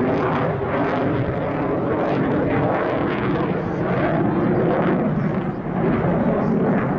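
Dassault Rafale C fighter jet's twin Snecma M88 turbofans, a loud, steady jet noise as the aircraft flies a high-g display manoeuvre overhead.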